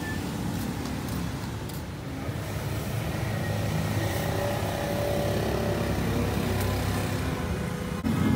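Steady low rumble of motor-vehicle engines running, with no distinct knocks or clicks.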